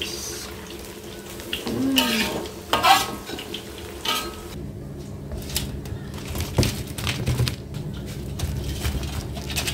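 Battered tempeh frying and sizzling in hot oil in a steel wok, with a metal spatula scraping and clacking against the wok as the pieces are turned.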